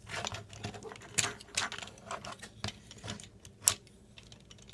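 Plastic Transformers Generations Sandstorm action figure being handled and moved, its parts giving irregular small clicks and taps, with one sharper click about three-quarters of the way through.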